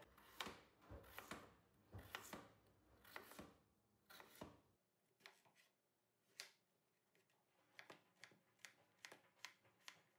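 Chef's knife cutting raw potato and zucchini on a plastic cutting board, faint. Slicing strokes come about once a second in the first half, then quicker, sharper taps of the blade on the board.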